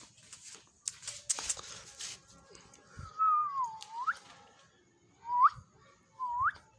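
A person whistling close by: one longer note that dips and then sweeps upward, followed by two short rising whistles. Before them, handling rustles and light knocks.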